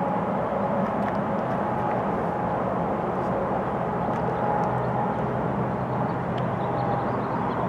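Diesel locomotive engine running with a steady drone as the locomotive approaches along the track.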